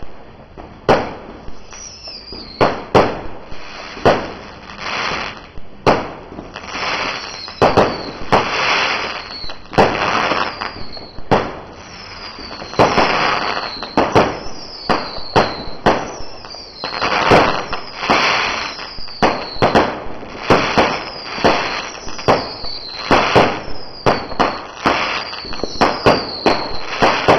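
Low-noise 1.4G consumer fireworks going off in a continuous run of sharp launch reports and bursts, often several a second, each followed by a short hiss or crackle as the stars break.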